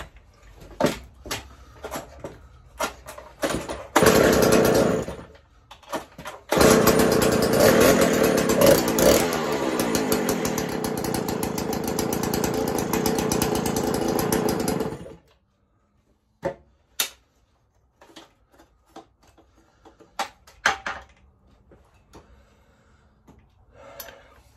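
Stihl 07S two-stroke chainsaw engine firing for about a second and dying, then starting again and running loudly for about eight seconds with rises and falls in speed before cutting out suddenly. The carburettor is out of tune, with the low-speed screw only about three-quarters of a turn out. Clicks and knocks from handling the saw come before and after.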